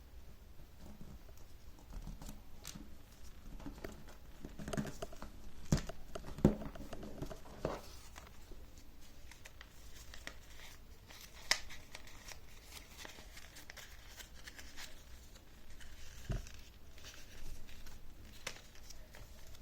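A sheet of paper being folded and creased by hand: irregular rustling and crinkling, with a few sharper taps and snaps as folds are pressed down.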